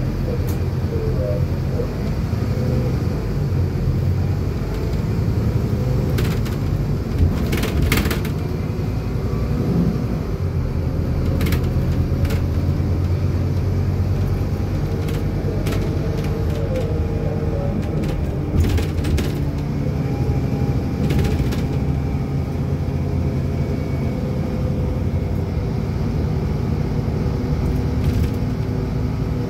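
Inside a bus on the move in traffic: steady low engine and road rumble, with occasional short clicks and rattles.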